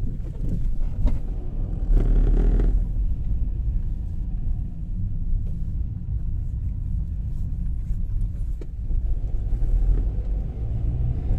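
Car driving along, a steady low rumble of engine and road noise, with a louder, rougher patch about two seconds in.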